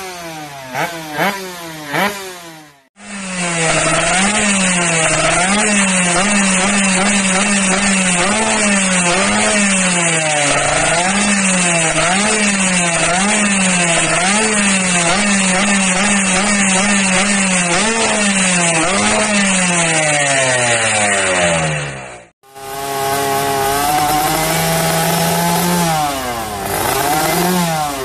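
Two-stroke underbone motorcycle engines with ABRT20 racing expansion-chamber exhausts, revved hard over and over while standing still, the pitch rising and falling with each quick throttle blip. Three bikes in turn, each cut in abruptly, about three seconds in and again near the end.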